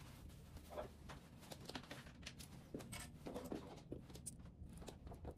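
Faint handling noise: scattered rustles and light clicks as clothing and jewelry are handled, over a low steady hum.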